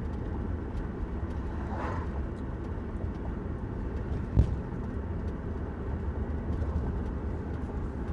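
Van driving along, heard from inside the cabin: a steady low road and engine rumble, with a single short thump about four seconds in.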